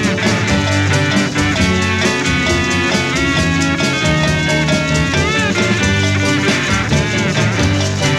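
Psychedelic rock band playing an instrumental passage between sung verses, with drums, bass and wavering, bending lead notes.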